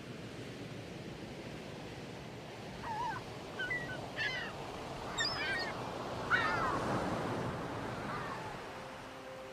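Surf washing onto a beach as a steady rush, with a series of short bird squawks from about three seconds in until about eight seconds in. Electric piano music begins at the very end.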